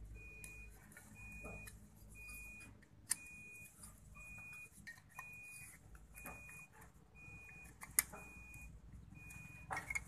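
A steady electronic beeping: one short high beep repeating evenly, a little more than once a second. Two sharp metal clicks, about 3 and 8 seconds in, come from two-stroke trimmer engine parts being handled during reassembly, over a low background rumble.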